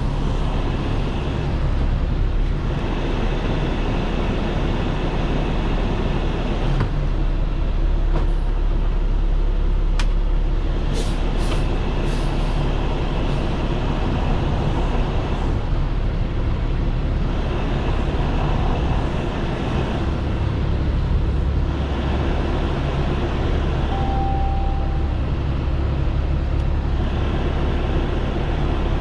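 Heavy tow truck's engine running at low speed, heard from inside the cab as the truck and trailer back up, a steady low rumble with a hiss that swells and fades every few seconds.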